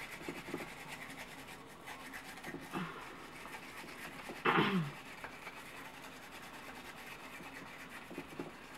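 Small scrub brush scratching back and forth over a label stuck on a piece of plexiglass: a faint, steady scratching. A short vocal sound from the woman, falling in pitch, about halfway through.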